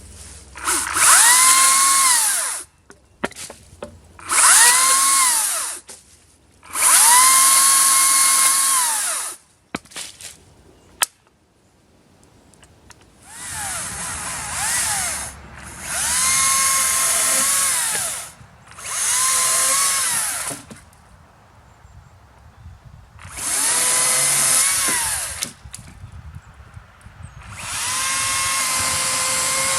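Makita XCU08 36V cordless top-handle chainsaw running in eight short runs of about two seconds each. In each run the high electric whine rises to speed, holds steady, then winds down, with quiet between runs and one sharp click about halfway through.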